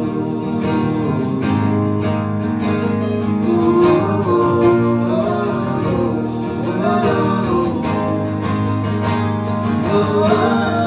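Live country song: two acoustic guitars strummed over a keyboard, with singing.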